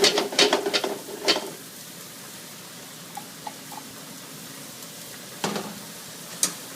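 Diced shallots going into a pan of hot olive oil: a quick run of scraping clatters for about the first second and a half, then a steady sizzle of the shallots frying, with a couple of single clinks near the end.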